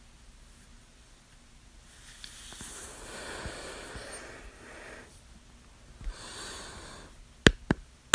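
A person breathes out long and audibly for about three seconds, then takes a shorter breath. Near the end come a few sharp clicks in quick succession, the loudest sounds here.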